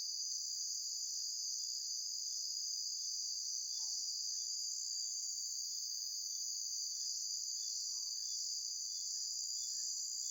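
A steady high-pitched chorus of crickets, with faint short calls repeating about twice a second from frogs breeding in the rain-flooded swampy ground.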